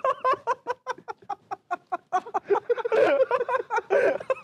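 Two men laughing helplessly: a fast run of short, breathy bursts of laughter, several a second, the two voices overlapping.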